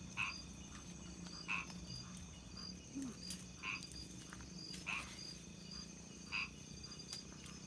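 A frog croaking repeatedly, one short call about every second or so, over a steady, evenly pulsing high insect trill.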